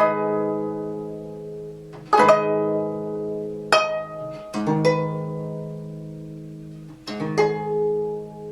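Gayageum, the Korean plucked zither, playing slow, sparse notes. Firm plucks come every second or two, some in quick pairs, and each lets the strings ring out and fade slowly.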